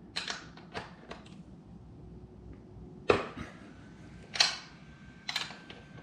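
Metal hand tools clicking and knocking on a motorcycle's rear axle: a socket and breaker bar on the axle nut and a wrench on the other end. A few quick light clicks, then two loud sharp cracks about three and four and a half seconds in, and a short run of clicks near the end.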